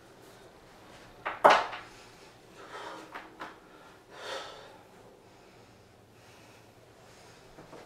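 A man breathing hard, with several short, forceful exhales or snorts; the loudest comes about one and a half seconds in and the others near three and four and a half seconds in.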